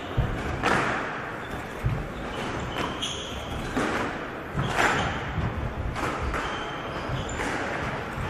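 A squash rally: an irregular series of sharp hits, roughly one a second, as the ball strikes rackets and the walls, echoing around a large hall. Shoes give short squeaks on the wooden court floor between the shots.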